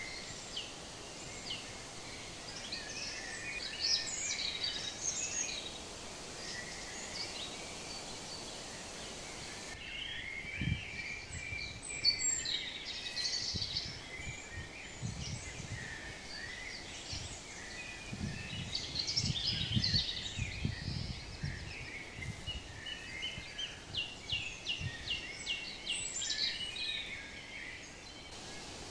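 Small birds chirping and singing in quick, overlapping trills, with soft low rustles and thumps in the middle stretch.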